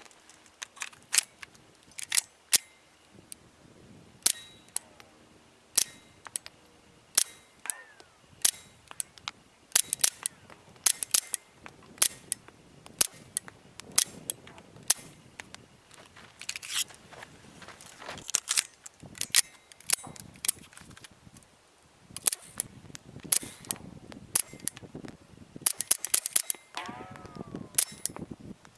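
Walther PPK/S .22 LR pistol fired through an AAC Halcyon suppressor: dozens of suppressed shots, each a short sharp crack. They come singly and in quick strings, with a brief pause a little past the middle and a fast run of shots near the end.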